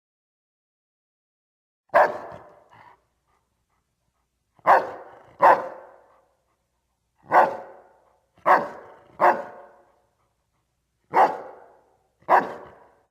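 Doberman barking: eight single barks at irregular intervals with silence between, twice in quick pairs. Each bark dies away in a short echo.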